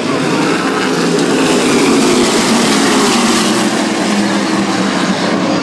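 A pack of 600-horsepower modified race cars running at full throttle past the grandstand, a dense, continuous engine noise from many cars at once that swells slightly about two seconds in.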